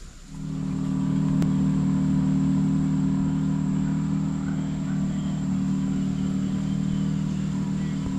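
A motor running steadily at one unchanging pitch, starting abruptly just after the beginning.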